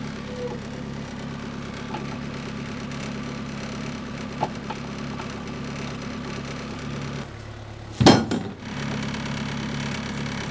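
Tractor front loader's engine running steadily as the pallet forks are worked, with a loud clank about eight seconds in and a smaller knock just after as the forks set the load down on the truck deck.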